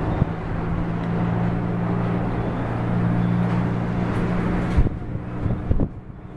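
A motor vehicle's engine running steadily with a low hum and a rush of noise, which cuts off abruptly about five seconds in. Wind gusts buffet the microphone with low thumps.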